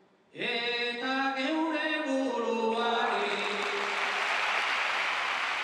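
A bertsolari's voice sings the closing line of an improvised Basque verse (bertso) a cappella. About three seconds in, a large crowd breaks into applause that carries on.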